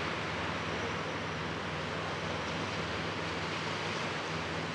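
Steady rush of Black Sea surf breaking on a sandy beach, even and unbroken, with a faint low hum beneath.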